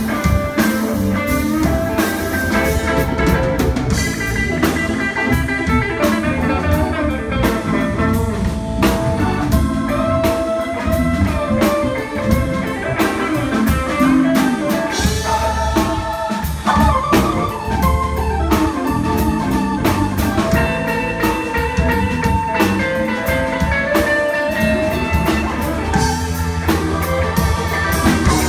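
Live blues band playing an instrumental break with no singing: drum kit, electric bass and electric guitars, with an organ sound from the keyboard.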